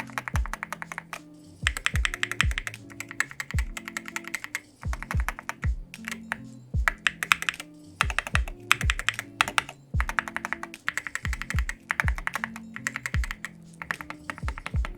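Fast typing on a Wooting 60HE+ mechanical keyboard: dense runs of key clacks in bursts with brief pauses. Background music with a steady kick-drum beat plays under it.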